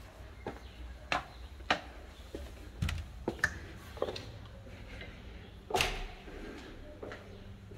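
Footsteps on stone steps and a tiled floor while a wooden front door is opened and walked through, giving a string of separate clicks and knocks from the steps, handle and latch, with the loudest thud about six seconds in.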